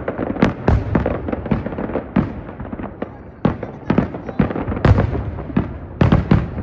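Aerial fireworks shells bursting in a rapid, irregular barrage: a run of sharp booms, several coming close together, with rumbling echoes between them.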